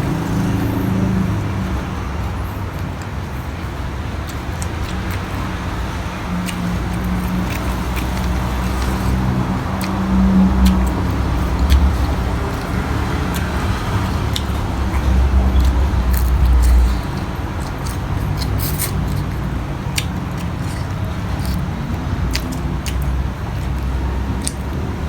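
Close-miked eating: chewing over a steady low rumble, with short sharp crunches mostly in the second half.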